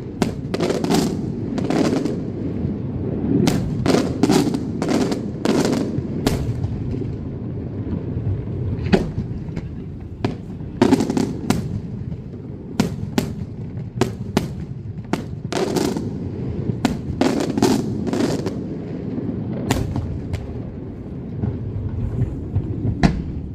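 Daylight aerial fireworks shells bursting in rapid runs of sharp bangs over a continuous low rumble. The bangs thin out for a few seconds about a third of the way in, then come thick again.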